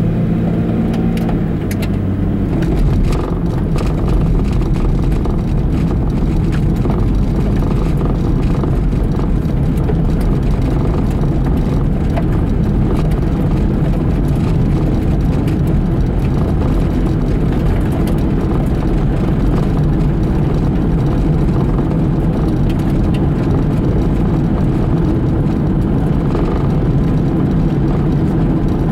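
A car driving at a steady cruise, heard from inside the cabin: a continuous low rumble of engine and tyre road noise. A faint engine tone fades into the rumble about a second in.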